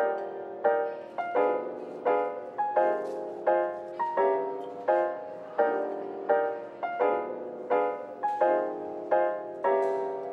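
Background music: a piano playing a melody, notes struck at a steady pace of about three every two seconds.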